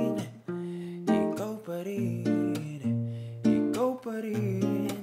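Acoustic guitar strummed in chords, with a man singing over it in held, sliding notes.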